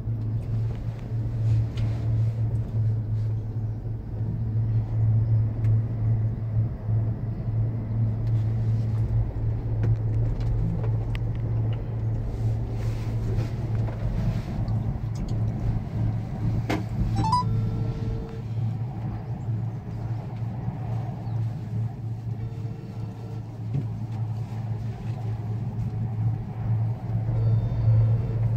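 Steady low hum and rumble inside a moving cable-car gondola as it travels along its cable, with a brief rising chirp a little past halfway.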